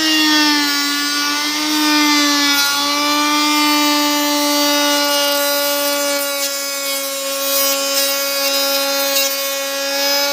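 Electric plunge router running while it cuts a curved edge into a wooden board: a steady high motor whine over a hiss of cutting. The whine drops slightly in pitch in the first second, then holds level.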